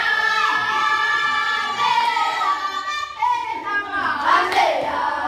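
A group of children singing together, with long held notes.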